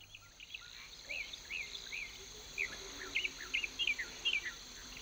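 Savanna nature ambience: a bird chirping in a run of short, quick notes over a steady, high-pitched insect drone.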